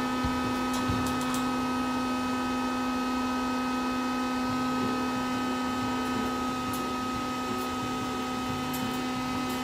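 A steady hum of several held pitches, with a few faint clicks.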